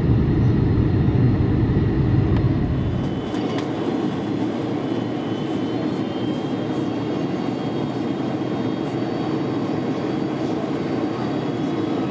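Boeing 747-400 airliner cabin noise on approach: a steady roar of airflow and engines. About three seconds in, the deep low rumble drops away, leaving a steadier roar with a faint high whine above it.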